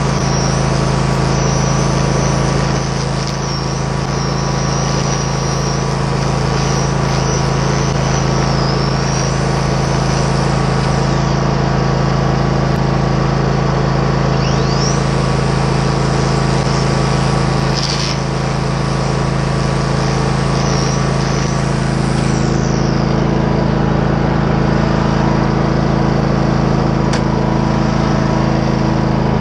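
Husqvarna zero-turn riding mower's engine running steadily with a constant low hum, while a thinner high whine rises and falls now and then.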